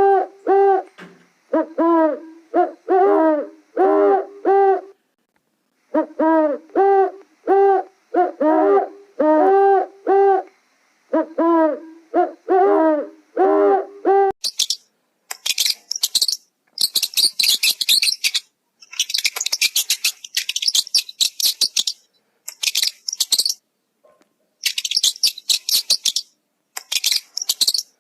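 An animal's repeated hooting calls, each a short arched note, coming in runs of several with brief pauses. About halfway through they give way to rapid high-pitched chirping in bursts.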